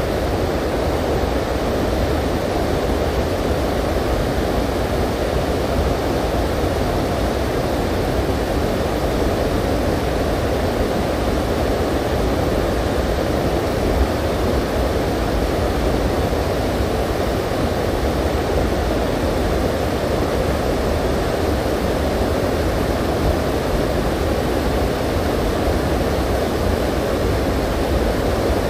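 Small river's current rushing steadily, a constant even noise without breaks.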